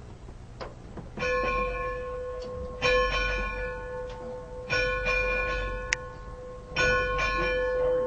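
The bell of steam locomotive #60 rung by hand from the cab: four strokes about two seconds apart, each ringing on and fading slowly.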